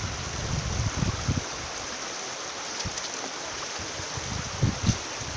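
River water rushing steadily, with a few short low thumps mixed in.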